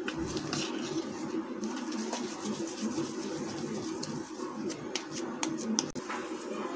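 Oiled hands taking and shaping soft lotus-stem and potato kabab mixture into patties over a bowl: faint scattered handling clicks and dabs over a steady low hum.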